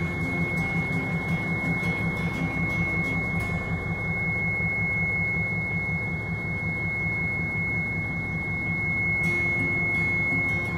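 Hino Profia truck's diesel engine idling steadily, heard from inside the cab, with a constant high-pitched tone over it.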